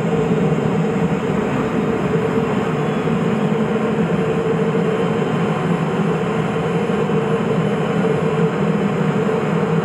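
Cessna P210 Silver Eagle's Rolls-Royce 250 turboprop engine running steadily at low power, heard inside the cabin as the aircraft taxis.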